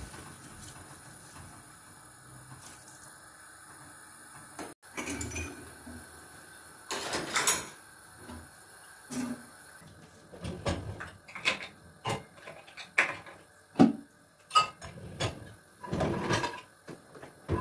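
Dishes and kitchenware being handled: a run of sharp clinks, knocks and clatters of glass, metal and crockery as items are moved in a steel sink and taken from a dishwasher rack. They start about five seconds in and come thicker in the second half; before that there is only a faint steady hum.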